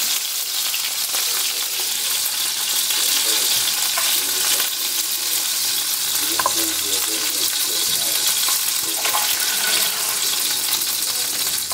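Chicken thighs frying in hot olive oil in a skillet: a steady sizzle, with the oil now and then popping and spattering.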